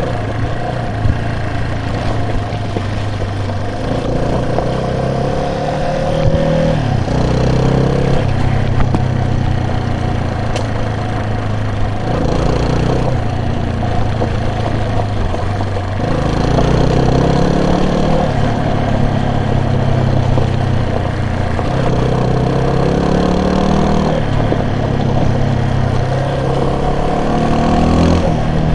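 Vehicle engine running while driving, its pitch climbing and dropping back several times as it speeds up and shifts gear, over steady road noise.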